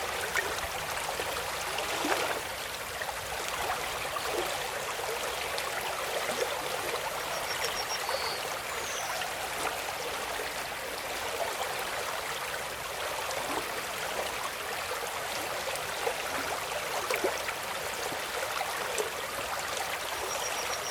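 Water running in a stream, a steady splashing trickle with no pauses.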